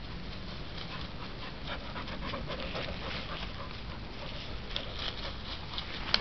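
Heavy panting breaths of a hiker close to the microphone, with crunching footsteps in leaf litter from about a second and a half in.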